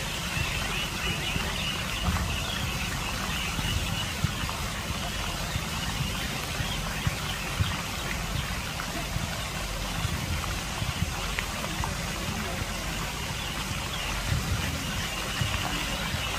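Fountain jets spraying and splashing back into a lake: a steady hiss of falling water with a low rumble underneath.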